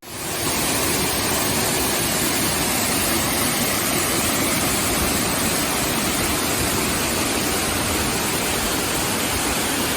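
Waterfall: a steady, even rush of falling water that fades in at the start and fades out at the end.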